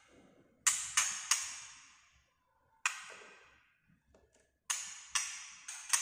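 White-rumped shama giving sharp, harsh 'tạch' calls, the excited call that keepers try to draw from the bird. There are seven calls, each trailing off briefly: three in quick succession about a second in, one alone in the middle, and three more near the end.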